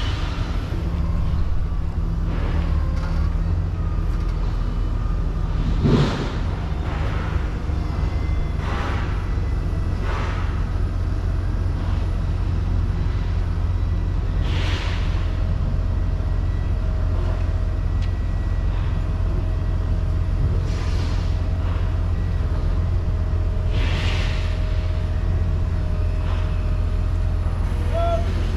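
Vehicle engine running steadily with a low rumble, with a sharp thump about six seconds in and several short hisses scattered through.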